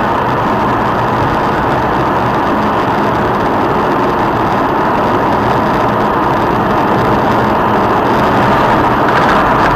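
A motor vehicle running steadily: engine and road noise, growing a little brighter about nine seconds in.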